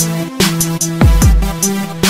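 Electronic dance backing music with deep, pitch-dropping kick drums, held synth notes and bright high percussion on the beat.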